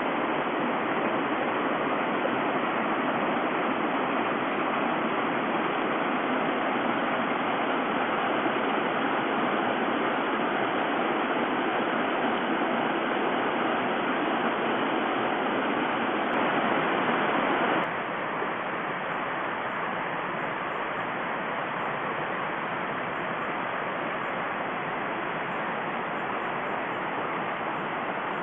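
Small rocky woodland creek rushing over stones: a steady wash of water noise. It drops a little in loudness about two-thirds of the way through.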